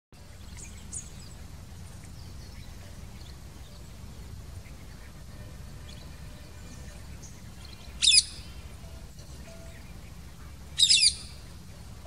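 Rose-ringed parakeet calling: one short loud call about eight seconds in and a doubled call near the end. Fainter high chirps come in the first second, over a steady low background rumble.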